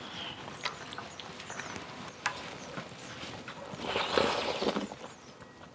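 Close-up eating sounds of clam kalguksu noodle soup: chewing and mouth noises with small clicks, one sharp click about two seconds in, and a louder noisy stretch about four seconds in.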